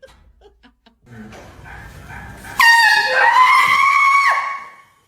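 Handheld air horn blasting suddenly about two and a half seconds in, a loud steady blare that lasts under two seconds. A person's startled scream rises in pitch over it, and both cut off about four seconds in.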